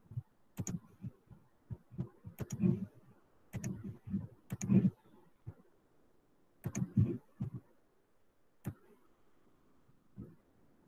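Computer mouse clicking irregularly, often two or three clicks close together, thinning out after about five seconds.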